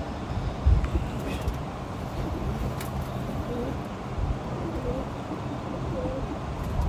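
Domestic pigeons cooing faintly over a steady low rumble, with a loud thump about a second in and another near the end.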